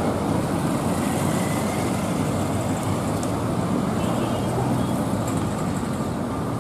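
Steady road traffic: cars and a motorbike passing with their engines running, over a low steady engine hum.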